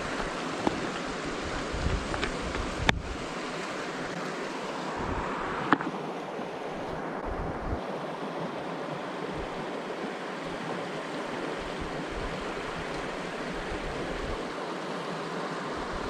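Shallow river water flowing, a steady rushing noise, with wind buffeting the microphone. Two sharp clicks, about three seconds in and again near six seconds.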